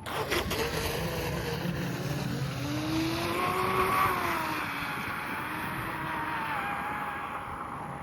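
Pro Boat Blackjack 26 RC catamaran's 4300 kV brushless motor and propeller whining at speed on a 3S battery, the pitch climbing as it comes in and dropping as it passes and runs away. Wind and water hiss underneath.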